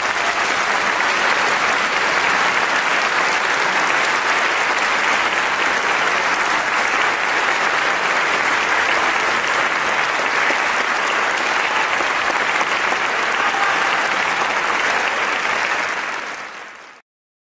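Concert audience applauding: steady, dense clapping that cuts off suddenly near the end.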